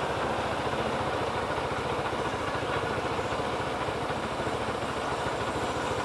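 Rusi SS250 sport motorcycle's engine idling steadily in stopped traffic.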